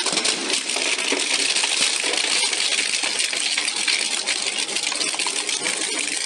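Industrial shaft shredder tearing up a desktop computer's sheet-steel case and power supply: a dense, continuous metallic crunching and clattering of many small sharp cracks as the cutter discs shear the metal.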